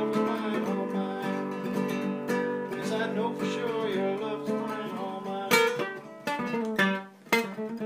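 Acoustic guitar strumming the closing bars of a song: held chords at first, then a few separate strokes with short pauses as it winds to an end.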